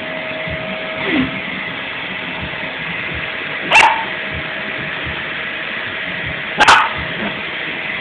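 A dog barks twice, about three seconds apart, two loud single barks over the steady running noise of a vacuum cleaner.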